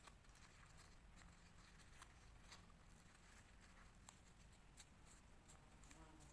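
Faint, irregular crackles and ticks of folded paper as an origami finger-trap toy is squeezed shut and pulled open by hand, over near-silent room tone.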